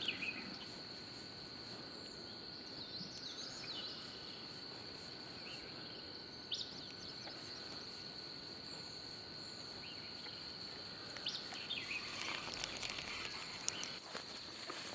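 Steady, high-pitched insect chorus outdoors, with a few short bird chirps scattered through it and a flurry of small chirps and clicks near the end.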